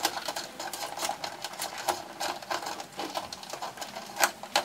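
An electrical wire being handled and pushed along the plastic wiring loom and into a hole in a car's trunk lid: a run of irregular small clicks and rustles, with a sharper click a little after four seconds.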